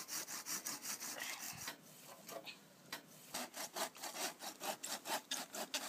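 Hand saw cutting through the stem of a small spruce in quick, even back-and-forth strokes, pausing for about a second and a half midway before starting again.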